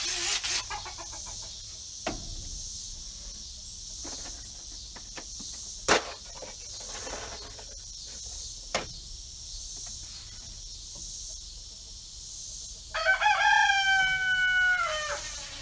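A rooster crows once near the end, a single call of about two and a half seconds. Before it there is a steady high insect drone and a few light knocks.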